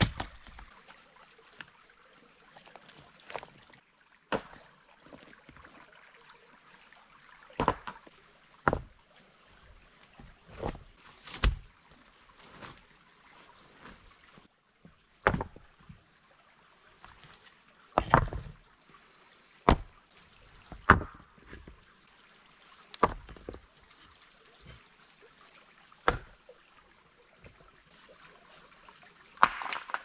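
Moss-covered stones being set down and knocked against one another, about a dozen separate sharp clunks at uneven intervals. A faint steady stream runs underneath.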